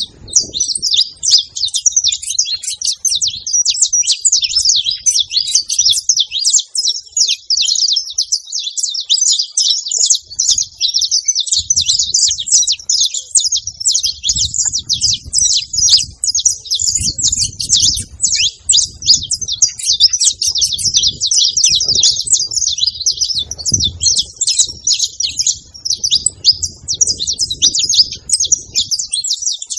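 Saffron finch chirping continuously: a dense, unbroken run of rapid high chirps.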